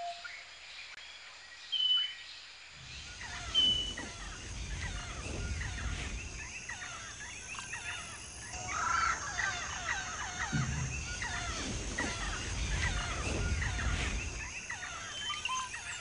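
Many birds calling at once, a dense chatter of chirps and squawks over a low rumble, starting about three seconds in and thinning out near the end. A short, high whistled note sounds a couple of times near the start and once near the end.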